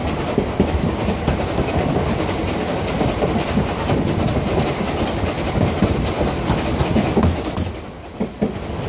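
Steam-hauled train's coaches running along the line, heard from the coach window: steady rolling noise with wheels clattering over the rail joints, briefly quieter about eight seconds in.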